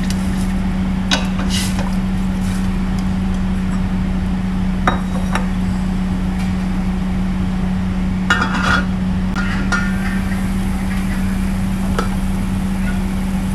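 A steady low hum, with a few light clinks and taps against a stainless steel pot scattered through it.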